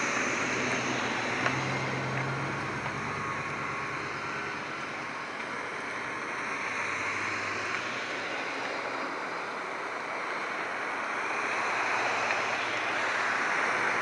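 Distant jet noise from a formation of nine Canadair CT-114 Tutor jets passing overhead: a steady rushing whoosh with a slow phasing sweep. It eases off around the middle and swells again near the end.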